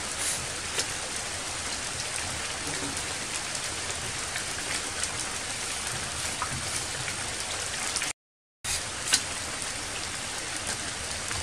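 Steady rain falling on leaves and rocks, with scattered louder drops. About eight seconds in, the sound cuts out completely for about half a second.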